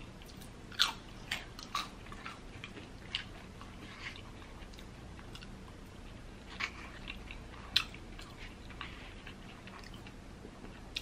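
A person biting and chewing a crisp tortilla chip, close to the microphone: a run of sharp crunches in the first two seconds, then quieter chewing with a few more crisp crunches a little past the middle.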